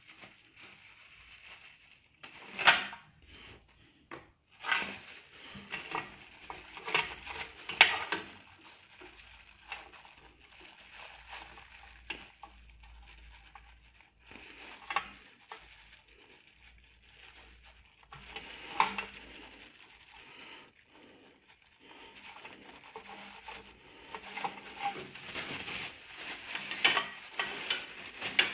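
Scattered clinks and knocks of small metal drill-press parts being handled and set down by gloved hands, the sharpest a few seconds in and around eight seconds. Plastic packaging crinkles near the end.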